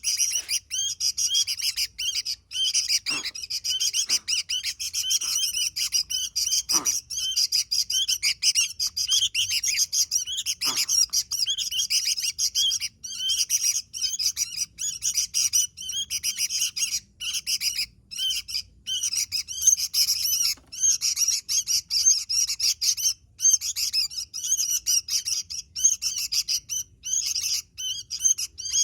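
Sooty-headed bulbul in full, lively song: a rapid, almost unbroken stream of short chirping notes with only brief pauses.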